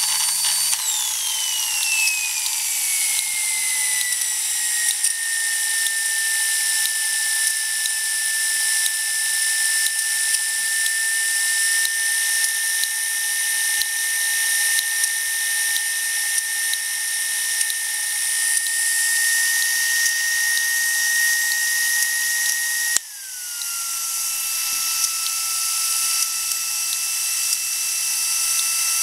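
Small live-steam model turbine running with a high-pitched whine over a steam hiss, with fine rapid ticking throughout. About a second in, the whine falls in pitch and then settles into a steady tone. Near the end the sound breaks off sharply and the whine comes back lower and steady.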